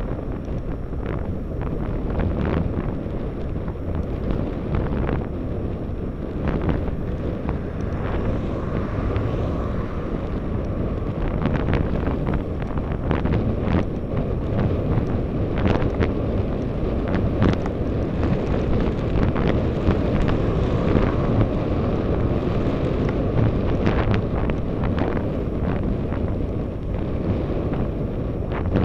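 Wind buffeting the microphone of a camera on a moving road bicycle, a steady low rumble with road noise and scattered short knocks.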